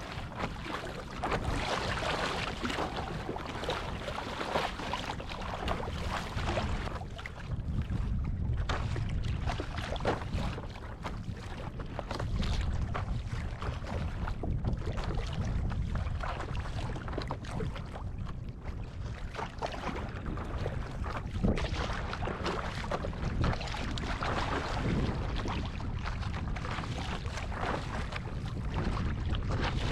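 Strong gusting wind buffeting an action camera's microphone, with a low rumble and water splashing around a stand-up paddle board out at sea.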